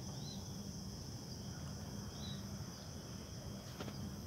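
Steady high insect chirring from the surrounding undergrowth, over a low rumble, with a couple of brief faint high chirps.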